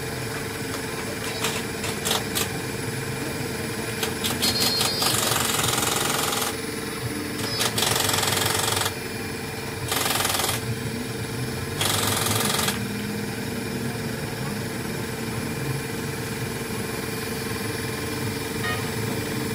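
Workshop sounds: a metal hand tool clicking and scraping against a small engine part over a steady hum, broken in the middle by four bursts of loud hissing noise, each up to about a second and a half long.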